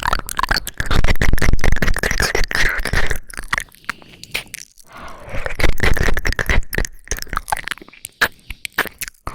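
Close-miked ASMR crackling and scraping noises, dense with sharp clicks, in two louder spells.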